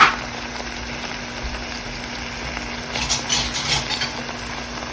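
Rice and lentils frying with a steady sizzle in hot oil and ghee in a pot, stirred with a spoon that gives a few short scraping clicks about three to four seconds in. A sharp knock at the very start, with a steady low hum underneath.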